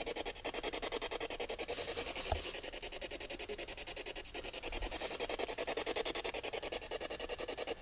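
Radio static pulsing rapidly and evenly, many times a second, from a spirit box sweeping through stations, with a faint steady high tone joining in after about six seconds and a single light knock near the start.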